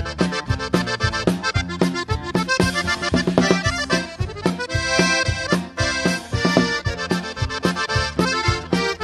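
Live band playing an accordion-led instrumental passage of a praise-song medley, with drums keeping a steady beat under held accordion chords.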